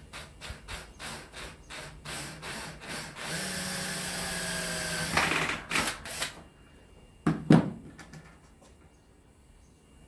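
Cordless drill worked in short trigger bursts, about four a second, then run steadily with a rising motor whine for about two seconds, then two more short bursts. Two sharp knocks follow about seven seconds in, the loudest sounds.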